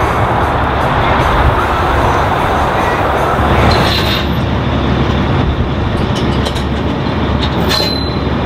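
Diesel semi-truck running close by: a steady heavy rumble with hiss, with a brief high squeal about four seconds in and again near the end.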